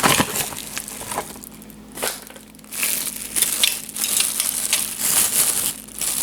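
Packaging being unwrapped by hand: irregular crinkling and crackling rustles, busier in the second half.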